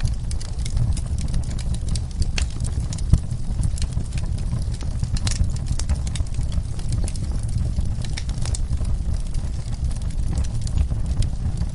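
Wood fire in a fireplace crackling: a steady low rumble of the flames with scattered sharp pops and snaps, one louder pop about three seconds in.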